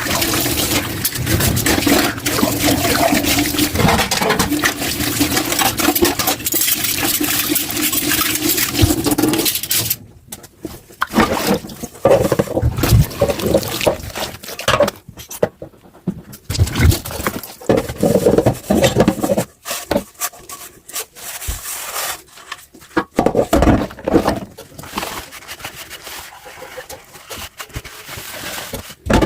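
Kitchen tap water running steadily into a sink, shut off about a third of the way in. Then scattered short knocks, clinks and splashes of dishes being handled and rinsed in the sink.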